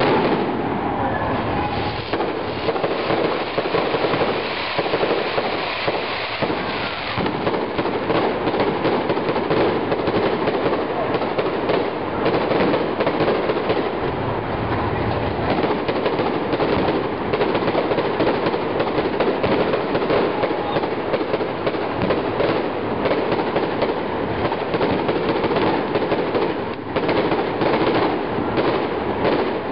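Fireworks display going off continuously: a dense, unbroken crackling of many rapid small bangs.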